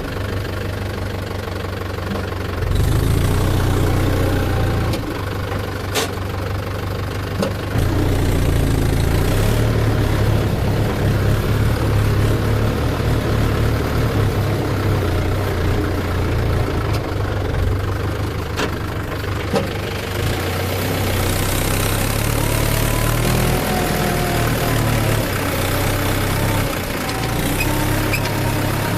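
Tractor diesel engine running hard under load, revving up in surges as the mud-laden tractor, sunk into soft ground, strains to pull free. Revs rise about three seconds in and again a few seconds later, with a couple of sharp clicks in between.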